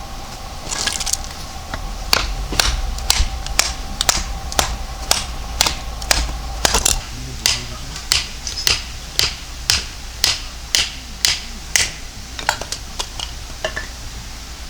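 Sharp knocks repeating about twice a second, over a faint steady tone that fades out about halfway.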